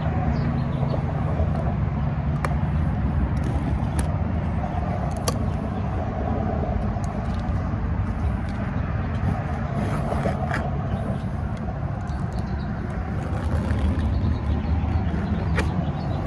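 A steady, low engine rumble, like a vehicle engine running, with a few faint clicks scattered through it.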